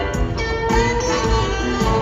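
Live rock band playing: electric guitars over bass and a steady drum beat, with held and bending guitar notes.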